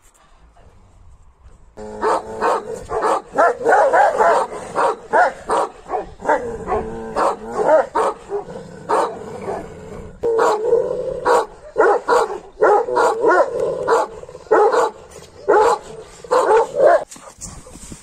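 Kangal shepherd dogs barking loudly and repeatedly, starting about two seconds in, with the barks at times coming thick and overlapping.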